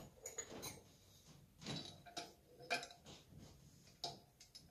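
Faint, irregular metal clicks and scrapes, about eight in all, from a steel flywheel puller and its bolt being turned and threaded by hand into a snowmobile engine's flywheel.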